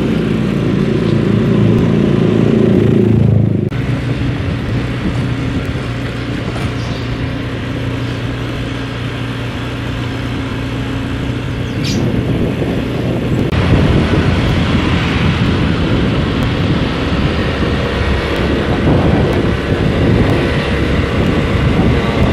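Honda motor scooter engine running while riding, loud at first, settling to a steady hum a few seconds in, then louder and rougher with more rushing noise through the second half.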